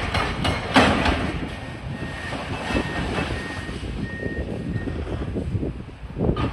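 Demolition excavators' diesel engines running with a steady rumble, a few sharp knocks of machinery on concrete in the first second. A faint intermittent beeping, about twice a second, comes in the middle.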